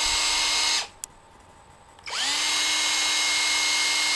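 A small electric drill with a bit, drilling out the old isolator from a vape atomizer. It runs until just under a second in and stops. After a single click it spins up again at about two seconds in, its whine rising quickly to a steady pitch, and keeps running.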